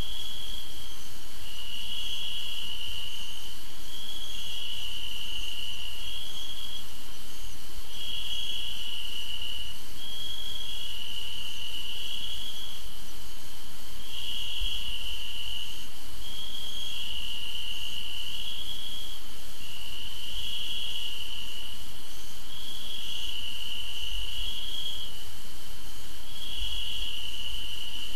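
Insects, cricket-like, trilling continuously: a high trill that steps back and forth between two close pitches in a pattern repeating every few seconds.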